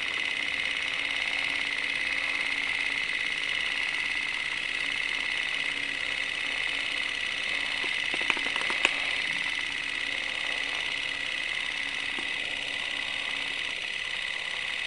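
Steady mechanical whirring with a faint low hum, and two sharp clicks a little past the middle.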